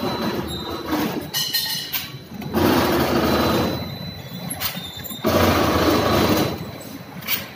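Automatic rotary star-wheel bottle-capping machine running. A loud burst of machine noise starts sharply about every two and a half seconds as each capping cycle runs, over a faint steady high tone.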